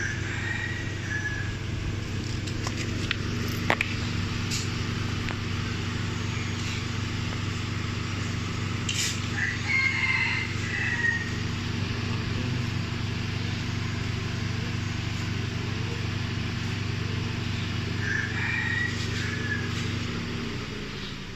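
A car engine idling steadily, its hum sliding down and fading near the end as it winds down. A rooster crows three times over it: once at the start, once about halfway through, and once near the end.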